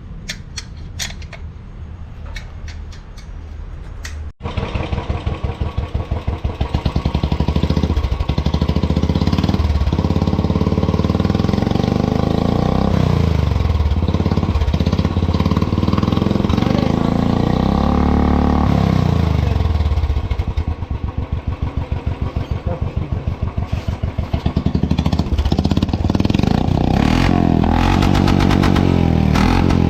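Light metallic clicks and clatter, then about four seconds in a motorcycle engine cuts in loudly, running with an even, rapid pulse and revved up and down several times.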